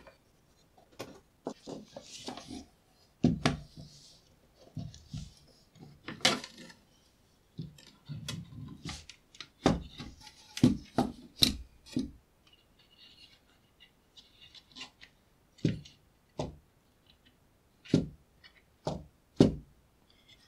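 Handling a small sheet-metal electronics case: a screwdriver clicking on screws, the metal lid lifted off with scrapes and knocks, and parts set down on the desk. The clicks and knocks are irregular and spread throughout, several of them sharp. Near the end, a ribbon-cable connector on the circuit board is handled.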